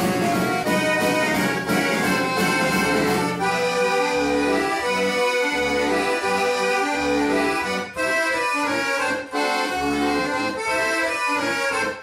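Accordion playing a tune in sustained reedy notes, with bass notes coming in a regular pulse from about four seconds in.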